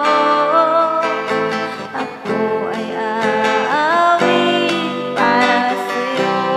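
A worship song: sustained, sliding sung notes over acoustic guitar chords.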